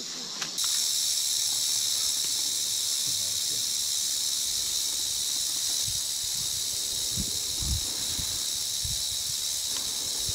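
Timber rattlesnake rattling: a steady, high, hissing buzz that starts abruptly about half a second in and holds without a break, the defensive warning of a coiled snake. A few low thumps sound under it near the middle.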